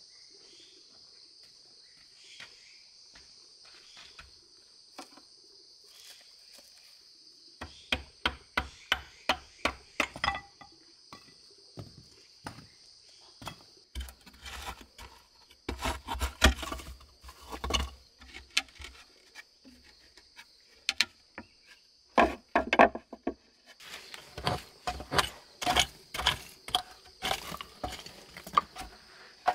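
Hand hammer knocking against wooden boards and brick at the base of a brick oven stand, in fast runs of sharp blows from about eight seconds in. A steady high insect drone runs underneath.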